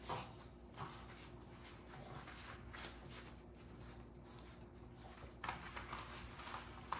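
Faint scuffling and small clicks from American bully puppies moving about and nuzzling at their mother's belly trying to nurse, with a few sharper taps near the end.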